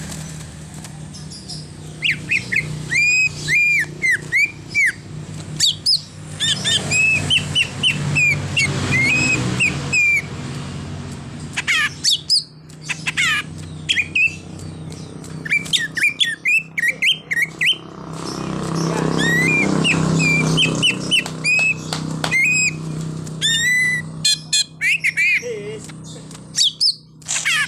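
Green leafbird (cucak ijo) singing a full, varied song packed with mimicked phrases: strings of short rising and falling whistles and rapid high chirps, with brief pauses between bouts. A low steady hum runs underneath and swells about two-thirds of the way through.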